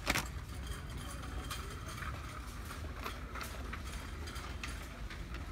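Supermarket aisle ambience: a steady low hum with scattered light clicks and taps, the sharpest right at the start, from walking along the shelves.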